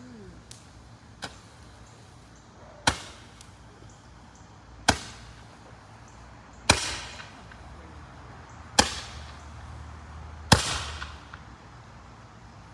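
Consumer fireworks firing a series of sharp bangs about two seconds apart: one faint shot, then five loud reports, each trailing off in a short crackling tail.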